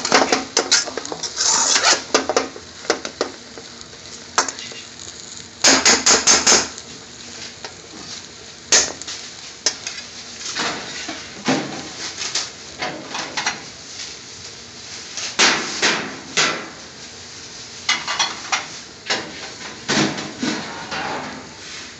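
Metal spoon scraping and clanking against a wok as stir-fried beans and potatoes are turned over, in short spells of quick strokes with quieter pauses between.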